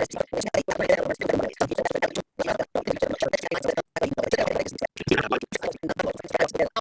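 A person's voice that is choppy and garbled, breaking up with many short dropouts.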